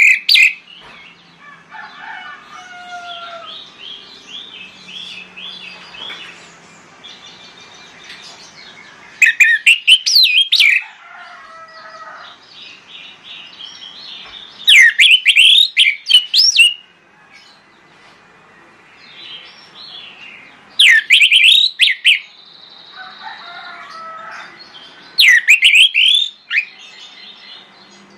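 Orange-headed thrush singing: loud, sharp whistled phrases of a second or two, coming every five or six seconds, with softer, quieter twittering and warbling between them.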